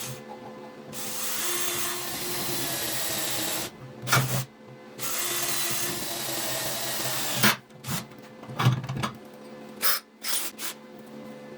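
A power tool, drill-like, runs twice for about three seconds each, with a sharp knock between the runs and several metal knocks and clatters after the second run.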